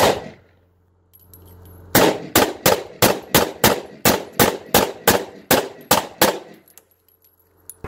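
Pistol gunfire from two pistols fired one-handed: one shot at the start, then after a pause of about two seconds a rapid, even string of about fourteen shots, roughly three a second.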